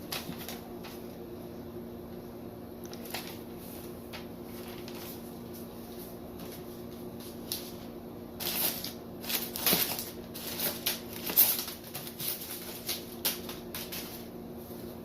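Paper and shipping-box packaging being handled, rustling and crinkling in a run of short bursts over the second half, over a steady low room hum.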